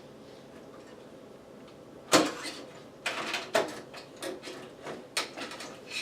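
A run of sharp knocks and clatters of computer hardware being handled, starting about two seconds in; the first knock is the loudest, followed by about seven more, uneven and a fraction of a second apart.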